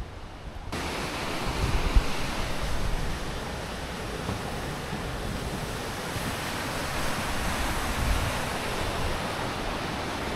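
Steady rush of flowing water, cutting in suddenly less than a second in.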